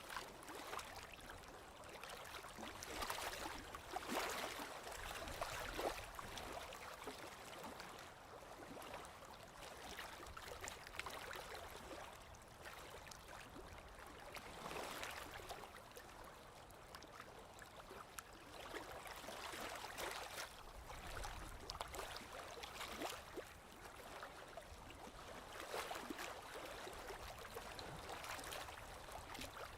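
Small lake waves lapping and splashing against the shore, in soft irregular swells every few seconds.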